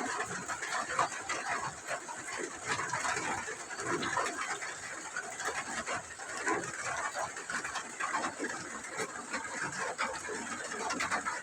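Two wild boars foraging, making a busy, irregular run of short snuffling and rooting noises. A steady high hiss runs underneath.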